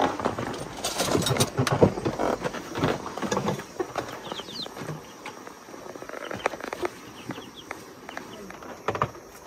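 Knocks and rustling of household things being handled, busiest in the first few seconds, with a few short bird chirps in the background.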